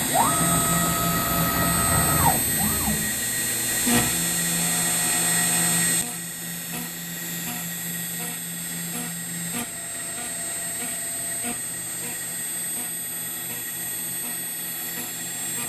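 CNC router spindle running at high speed (about 7,200 RPM) while a 7/64 in end mill cuts grid grooves into an aluminum plate, a steady high whine with cutting noise. In the first few seconds, tones glide up and down in pitch as the machine moves. About six seconds in, the sound drops to a quieter, steadier level with faint ticks.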